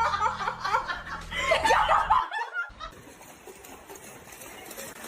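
A person laughing for about two seconds, then an abrupt cut to a quieter, steady background noise.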